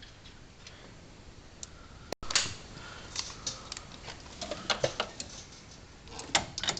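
Hand tools clicking and clinking against the steel front-suspension hardware, irregular sharp metallic ticks that grow busier after a brief break about two seconds in, like a wrench working on the steering stabilizer bolts.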